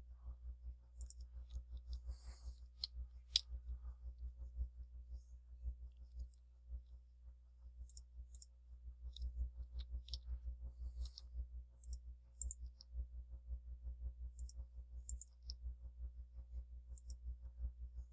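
Scattered clicks of a computer mouse and keyboard as a 3D program is worked by hand, over a low steady hum.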